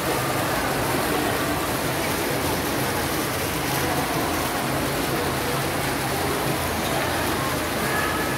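Water from an indoor fountain's jets splashing and foaming into its basin in a steady rush.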